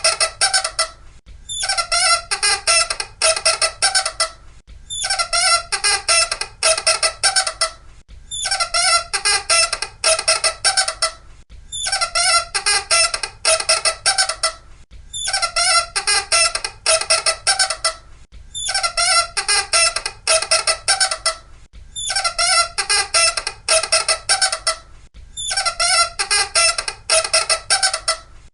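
Loud, high-pitched squeaking in repeated runs. Each run of several quick squeaks lasts about three seconds, with a short pause between runs, repeating evenly like a loop.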